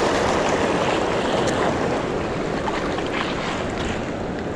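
Small waves washing and foaming over a rocky reef flat at the shoreline, a steady rush of surf.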